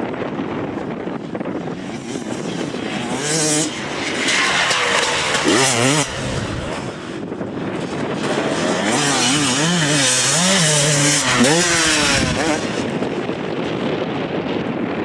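Dirt bike engines revving up and down as the bikes ride the track, the pitch rising and falling again and again with the throttle, loudest about two thirds of the way through.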